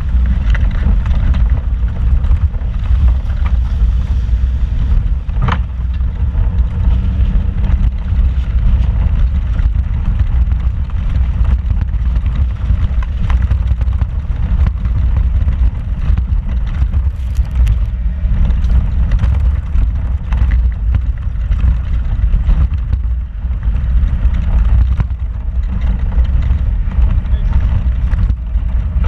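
Off-road vehicle driving slowly over a rocky dirt trail, heard from inside the cab: a steady low rumble of engine and tyres with scattered small knocks and rattles as it rolls over the rocks. One sharper knock comes about five seconds in.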